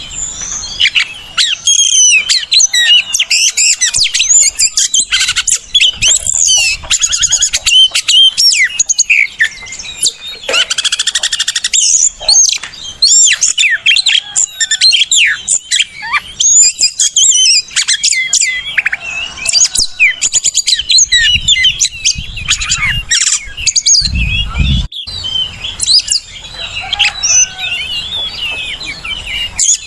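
Oriental magpie-robin (kacer) singing continuously, a loud, fast, varied song of clear whistles, rapid trills and chirps that sweep up and down in pitch. A brief low rumble comes in about 24 seconds in.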